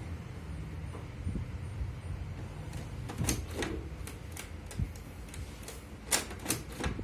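HP Deskjet 2050 inkjet printer running its cartridge head-cleaning cycle: a steady low motor hum with scattered sharp mechanical clicks, a couple about three seconds in and several near the end.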